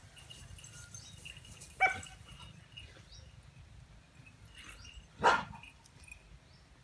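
A Thai Ridgeback dog barking twice, two single barks about three and a half seconds apart, over faint high chirping.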